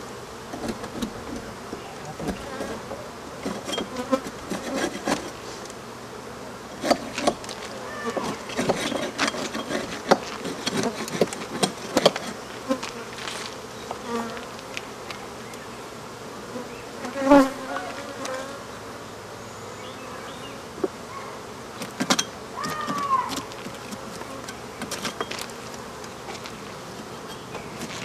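Swarm of African honey bees buzzing steadily around an opened nest in a house wall, with scattered clicks and knocks throughout.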